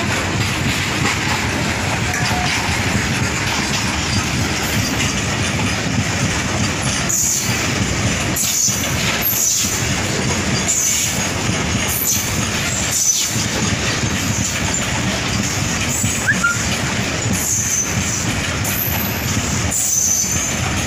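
Indian Railways freight train of covered boxcars passing slowly, its steel wheels running on the rails with a steady, continuous noise.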